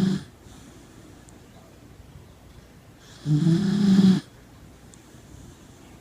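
A sleeping corgi snoring: one loud snore about a second long, a little over three seconds in, with a low buzz under a breathy hiss. The end of a previous snore is heard at the very start, with quiet breathing in between.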